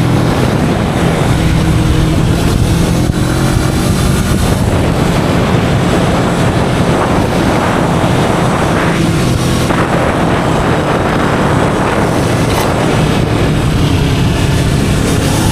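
Kawasaki Vulcan S 650 parallel-twin engine running under way through its stock exhaust, with engine pitch shifting a little at times. It is heavily buffeted by wind noise on an action camera's built-in microphone.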